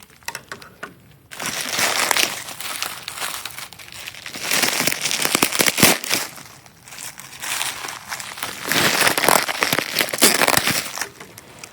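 Packing material crinkling and rustling as a heavily wrapped parcel is cut with scissors and pulled apart. It comes in three long bursts of crackly rustling with short pauses between them.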